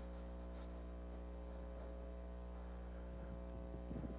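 A low, steady electrical mains hum from the sound system, with a few faint sounds near the end.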